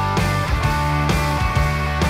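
Rock music playing with a steady beat of about two strokes a second.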